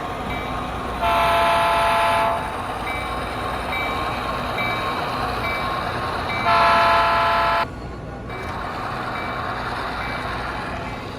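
Train horn sounding two long blasts, each about a second and a half, over a steady rumble, with a short bell-like ding repeating about twice a second between them.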